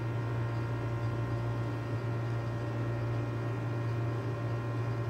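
Steady low hum with a faint even hiss: room tone with no distinct event.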